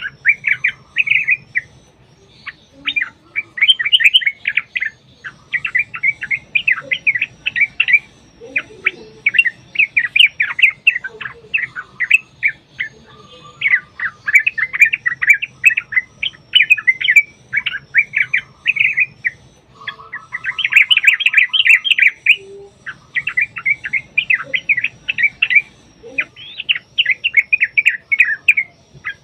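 Yellow-vented bulbul (trucukan) singing in bouts of rapid, chattering, bubbly phrases a second or two long, separated by short pauses, with a lower rattling trill about twenty seconds in.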